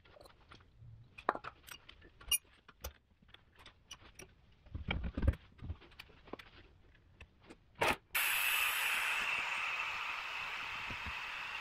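Small clicks and clinks of tools and a bleed hose being fitted at a brake caliper's bleeder screw. About 8 seconds in a steady hiss starts suddenly: the vacuum fluid extractor drawing brake fluid through the bleeder.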